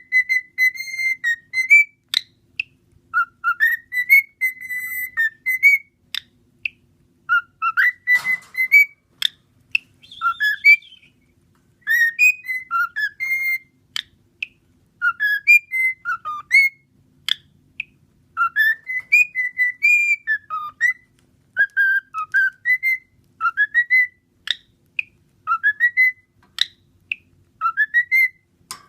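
Cockatiel whistling its song: a run of short whistled phrases of rising and falling notes, with brief sharp clicks between them.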